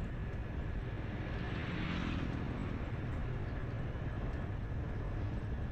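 Steady rumble of road and wind noise from a vehicle moving along a city street, with a faint steady whine.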